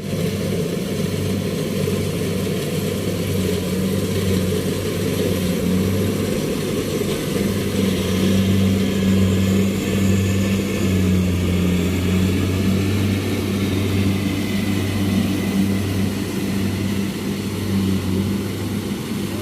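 Kubota DC73 Plus combine harvester running steadily, a constant engine hum with a low steady tone.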